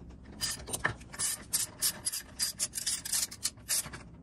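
Socket ratchet clicking in short runs, one after another, as it turns a clutch puller bolt that draws the clutch gear and plate off the engine shaft.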